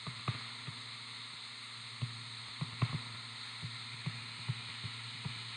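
Light, irregular taps and knocks of a stylus on a touchscreen during handwriting, over a steady low electrical hum.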